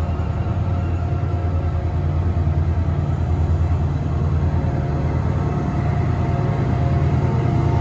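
Class 68 diesel-electric locomotive's engine running, a steady low rumble with a fast pulse, as the locomotive moves slowly past on the end of its coaches.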